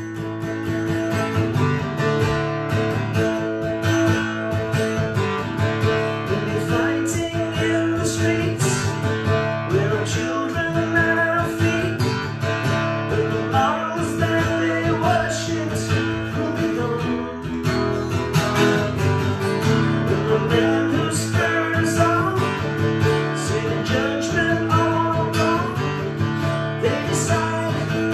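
Takamine cutaway acoustic guitar played steadily, strummed chords ringing in a regular rhythm.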